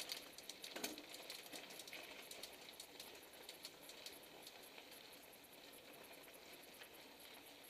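Faint clicks and light metallic clinks from mountain bikes rolling over a rough, patched paved lane, with one sharper click about a second in.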